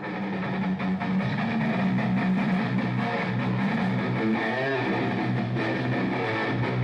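Electric guitar playing fast, dense riffing, with a wavering bend in pitch about four and a half seconds in.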